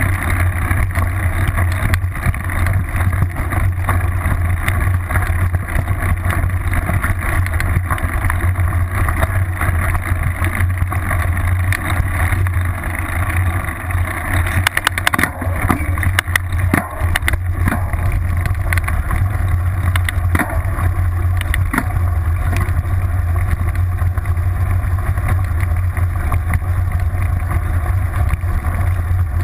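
Wind buffeting the microphone of a camera mounted on a moving mountain bike, over a steady low rumble from the rear tyre and frame on dirt and gravel trail. A few sharp knocks and rattles come from bumps about halfway through.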